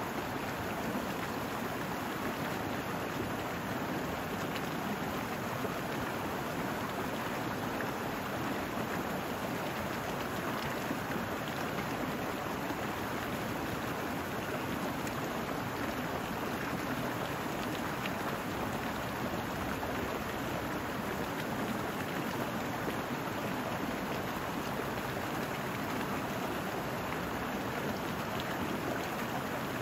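Small brook running over rocks: a steady, even rush of water.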